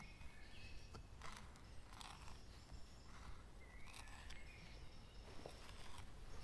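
Knife point scraping and scooping wood out of a bow drill hearth board, cutting the small starting divot that the drill will sit in; a few faint, short scrapes.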